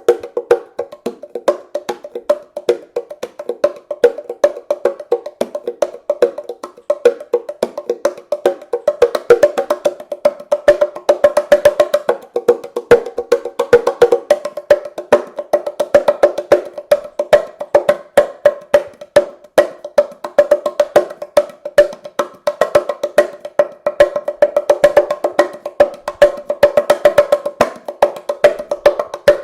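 Wooden bongo cajon played by hand: a quick, continuous run of sharp strikes on its wooden faces, each ringing with a woody, pitched tone.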